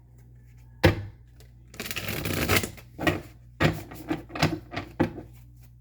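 A deck of tarot cards being shuffled: a sharp slap about a second in, a riffling rush of cards around two seconds in, then a run of quick card taps and slaps.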